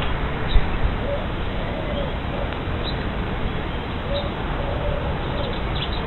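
Steady hiss from a wildlife camera's microphone, with faint bird calls in the background: short high chirps and soft low calls. Two low bumps just under a second in.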